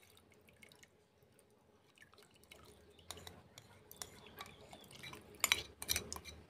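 A spoon scraping and tapping against a bowl as the last of the batter is scraped out into a pot of liquid, with small drips and splashes. The clicks come sparse at first, then grow louder and closer together near the end.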